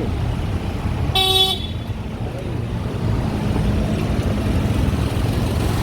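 A single short toot of a vehicle horn about a second in, over the steady rumble of passing street traffic.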